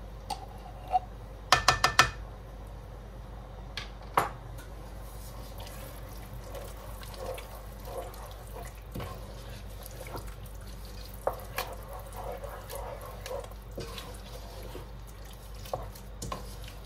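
Four quick, sharp knocks about a second and a half in as a glass jar is tapped out over a cooking pot, then a wooden spatula stirring a thick vegetable soup, with soft wet sloshing and occasional light clacks against the pot.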